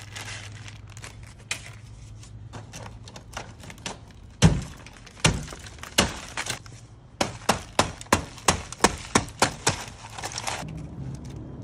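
A series of sharp knocks or cracks, like something being struck or broken, over a low steady hum. There are single hits at first, the loudest about four seconds in, then a quick run of about nine hits roughly three a second.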